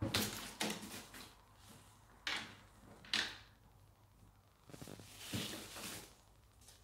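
Several short scraping, rustling knocks in a lidded plastic bin while a paper strip is dangled into it and pulled back out. The sharpest knock comes about three seconds in, and a longer scrabbling run follows near the end.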